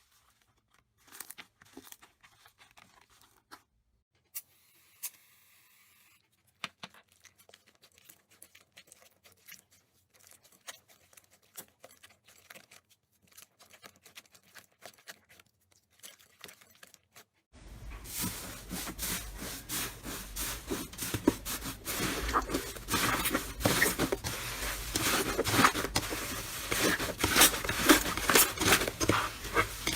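Slime being handled and squished: scattered sticky clicks and small pops, then, about two-thirds through, a much louder and denser run of crackling and popping.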